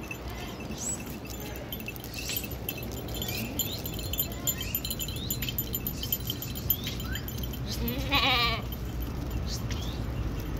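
A herd of long-haired Kashmiri goats walking on a paved road, hooves tapping and clicking on the asphalt. About eight seconds in, one goat gives a loud, wavering bleat.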